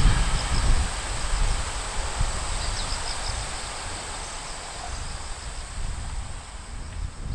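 Strong wind buffeting the microphone: a gusty low rumble that eases over the first second, with a thin steady high chirring of insects behind it.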